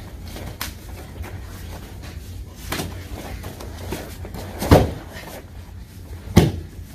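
Two heavy thuds of a body hitting a padded martial-arts mat during a takedown, about a second and a half apart, the second the louder, with a few lighter knocks and scuffs before them.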